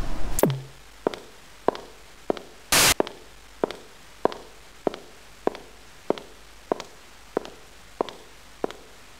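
Footsteps of hard-soled shoes walking steadily on a hard corridor floor, a little under two steps a second. It opens with television static cutting off in a quick falling tone, and a short burst of static breaks in about three seconds in.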